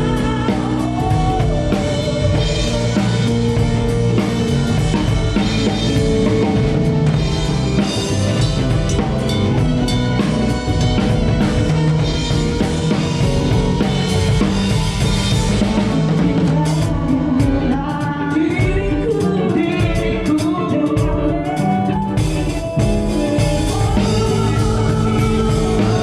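Live band playing a rock-style song at a sound check: drum kit, bass and guitar, with a singer's voice over them.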